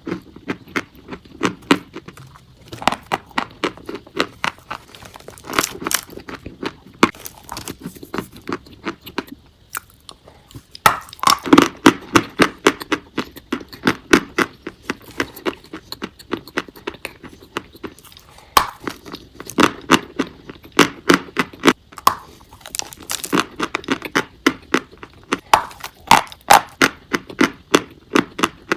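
Chalk being bitten and chewed: a rapid run of sharp, crisp crunches. There is a short pause about ten seconds in, then louder crunches.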